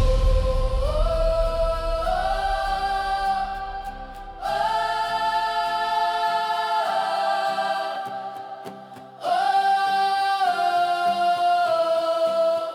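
Choir singing a hymn in three long phrases of held chords, each swelling and then fading. A heavy low backing dies away in the first seconds.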